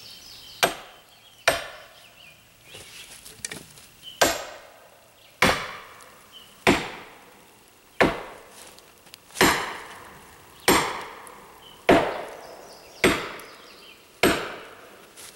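Sledgehammer striking a steel felling wedge driven into the back cut of a tree, about eleven blows, each ringing briefly. Two quick taps open the series, then after a pause come steady full swings a little over a second apart, driving the wedge in to push the tree over.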